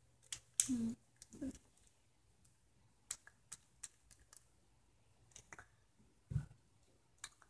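Faint scattered clicks and taps, with a brief low thump a little past six seconds in. A short hum of a child's voice comes just under a second in.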